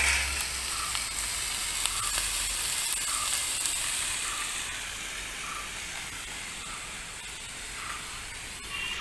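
Chopped onion, carrot and other vegetables sizzling in coconut oil in a cast-iron Dutch oven over a campfire, the sizzle easing off gradually in the second half.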